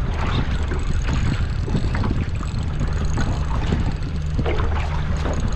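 Wind buffeting the microphone over a steady low hum aboard a small aluminium skiff at sea, with a few faint knocks.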